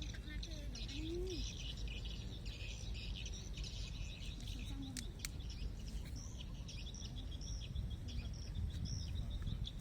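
Birds chirping in quick, repeated high-pitched runs over a steady low rumble.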